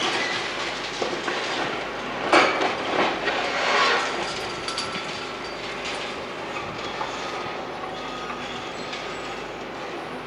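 Heavy demolition work: crunching, scraping and clattering of broken concrete and metal, with thin metallic squeals. It is loudest about two to four seconds in, then settles to a steadier grinding clatter.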